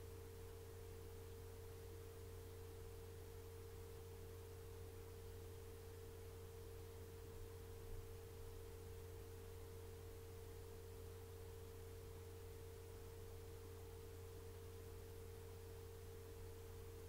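Near silence with a faint, steady hum: a constant mid-pitched tone over a low drone, unchanging throughout.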